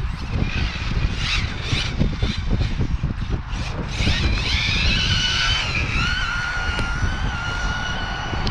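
Electric Hyper 10SC RC short-course truck on a 3S battery and 18-tooth pinion at full throttle: its motor whine rises about four seconds in and then holds steady. Heavy wind rumble on the microphone runs underneath.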